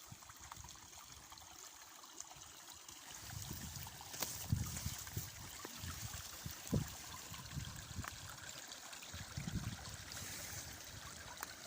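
A small brook flowing and trickling with a steady rushing hiss. Irregular low thumps come in from about three seconds in.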